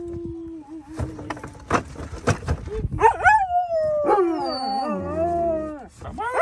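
A dog howling: a held note at the start, then from about three seconds in a louder, long, wavering howl with a second howling voice overlapping it, and a new howl starting just at the end.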